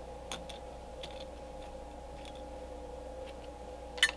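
Small metal carburetor parts clicking faintly as they are handled, with one sharp clink about four seconds in as a part is set into a small metal cup. A steady hum runs underneath.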